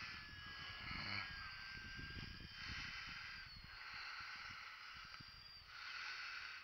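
Faint, thin whine of the UMX WACO's small electric motor and propeller in flight, gliding slightly in pitch. Wind buffets the microphone in the first half.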